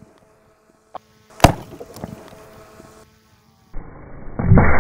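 A 12-gauge shotgun blast about a second and a half in, sharp and very loud with a fading tail. Near the end comes a dull, muffled, drawn-out low boom of the same shot.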